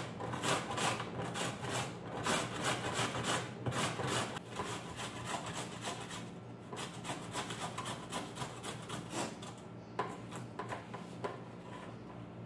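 Carrot being grated on a metal box grater: repeated rasping strokes, about three a second, fainter after about six seconds.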